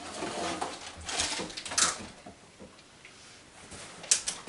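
Quiet handling sounds of snack-bar wrappers: light rustling and taps, with a sharp click about two seconds in and a couple more near the end.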